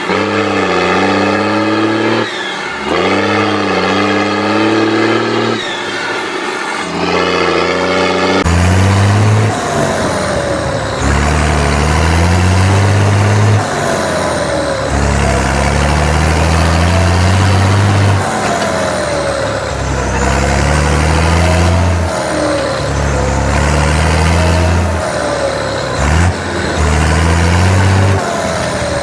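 Turbocharged diesel truck engines revved hard again and again, roughly every two seconds, each rev followed by a falling turbo whistle as the throttle closes. The sound jumps to a different engine clip about eight seconds in.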